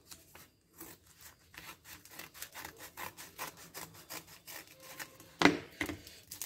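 Hands opening the screen guard's packaging: a quick run of short rubbing strokes, with one louder stroke near the end.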